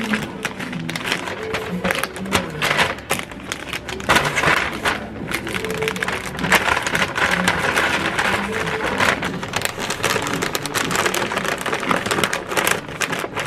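Cellophane wrappers crinkling as wrapped items are handled and packed, then a paper bag rustling as it is folded closed near the end, over soft background music.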